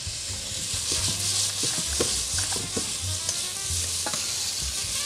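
Diced pears sizzling as they fry in a stainless-steel saucepan, stirred with a spoon that knocks lightly against the pan several times over a steady hiss.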